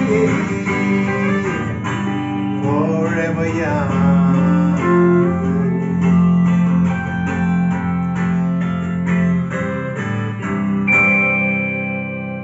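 Electric guitar lead played through an amplifier, with bent notes, over a second guitar's accompaniment. Near the end a high note is held and fades.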